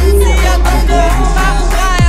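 Loud music with singing over a heavy, steady bass line.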